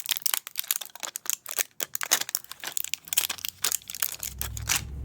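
Crinkling and tearing of a new coin-cell battery's plastic packaging as it is opened, a dense run of quick crackles. A low rumble comes in near the end.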